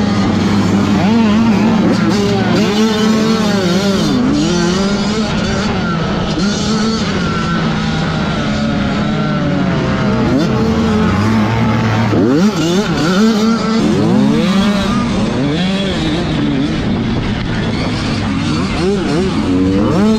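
On-board sound of a motocross bike racing in a pack: its engine revs up and down through the gears, with the engines of other bikes close by rising and falling in pitch around it.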